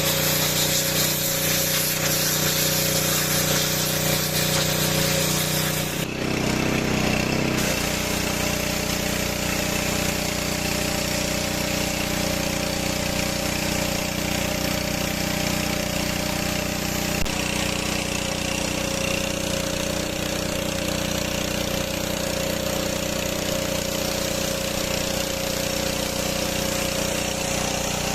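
Gasoline pressure washer's 6 HP engine running steadily. A loud hiss sits over it for the first six seconds, then fades out, and the engine runs on alone.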